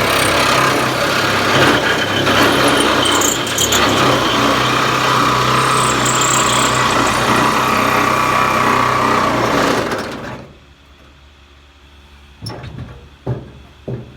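A power tool cutting through the sheet metal of a pickup truck bed, running loud and steady, then stopping about ten seconds in. A few short knocks follow near the end.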